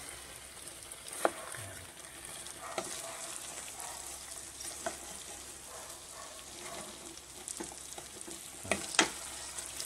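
Pork and onions in cream sauce sizzling in a pan while a spatula stirs and scrapes through them, with a few sharp taps of the spatula against the pan.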